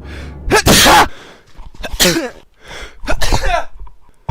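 A person sneezing: one loud sneeze about a second in, then two shorter, voiced ones about a second apart.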